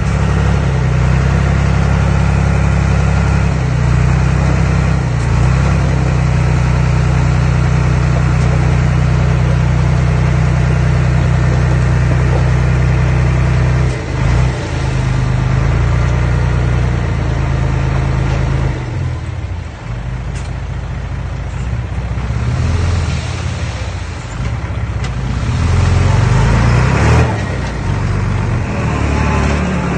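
Engine of an earthmoving machine running steadily under work. It dips briefly about 14 seconds in, drops back around the twenty-second mark, then picks up again near the end.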